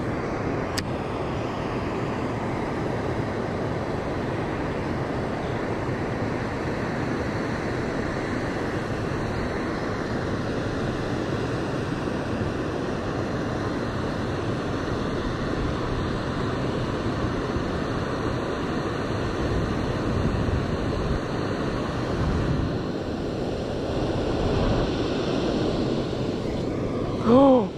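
Steady rushing of water pouring over a concrete spillway: a constant wash of noise with no break, and one short click about a second in.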